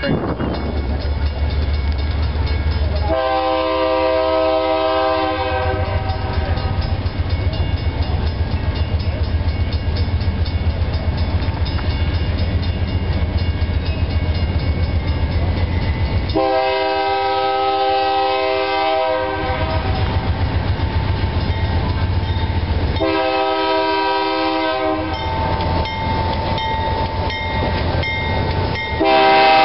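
A diesel freight locomotive's air horn sounds several notes at once in the grade-crossing pattern: two long blasts, a short one, then a last long blast that starts near the end. Under it the diesel engines give a steady low rumble. Near the end the lead locomotive passes close and loud, its wheels clicking over the rail joints.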